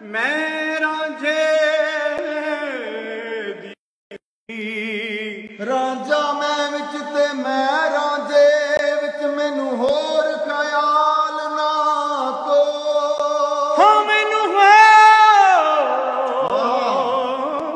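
A man singing in Punjabi style with no instruments. He holds long notes and breaks into fast, wavering ornamental runs, most strongly near the end. The sound drops out for a moment about four seconds in.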